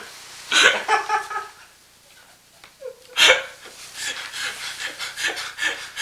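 People laughing in short bursts: two separate outbursts early on, then a quick run of chuckles from about four seconds in.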